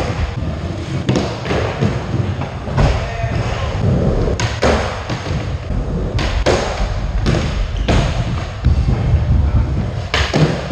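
Skateboard wheels rolling with a steady low rumble, broken by repeated sharp clacks and thumps of the board being popped and landed on a flat box.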